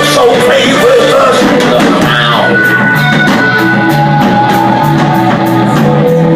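Rock band music with a drum kit keeping a steady cymbal beat over a stepping bass line and long held notes.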